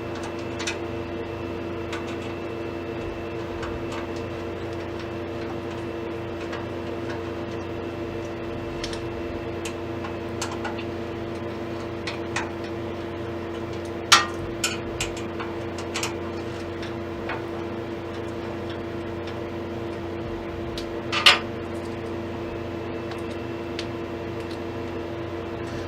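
Screws being taken out of a steel computer case by hand with a screwdriver: scattered small metallic clicks and knocks, with two sharper clicks about 14 and 21 seconds in, over a steady hum.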